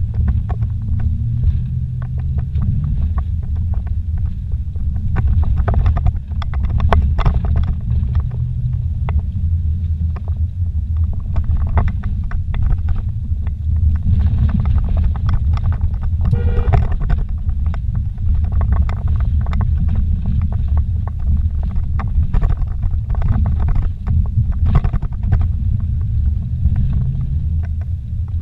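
Inside the cabin of a vehicle driving slowly over a rough dirt road: a steady low rumble from the engine and tyres, with frequent short knocks and clicks as it bumps over the ruts and stones.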